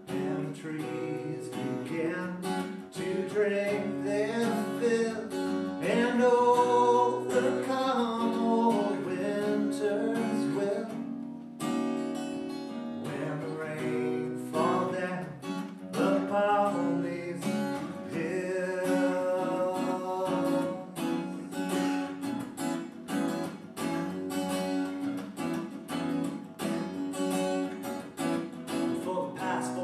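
A man singing to his own strummed acoustic guitar, the voice coming in lines with gaps where only the guitar plays.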